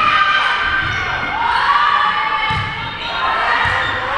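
Spectators and players shouting and cheering in a sports hall during a volleyball rally, with several dull thuds of ball hits and footfalls on the court.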